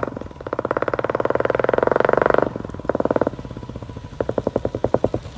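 Royal Enfield Classic 350 BS6's single-cylinder engine firing through a loud aftermarket K-Indori silencer: a rapid, even exhaust beat revved and held for a couple of seconds, dropping off sharply about two and a half seconds in. Then comes a short blip, and a few quicker throttle blips near the end.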